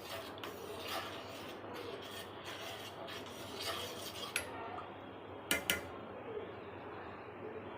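Repeated scraping of a kitchen utensil on food or cookware, with two sharp clinks a little past halfway.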